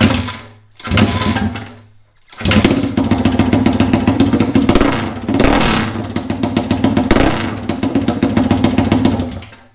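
2017 Honda CRF450R's single-cylinder four-stroke engine running with both mufflers off, so it exhausts straight out of the open pipes, unbearably loud. Two short bursts come first, then it runs steadily for about seven seconds, with a rise in revs a little past halfway, before it is shut off.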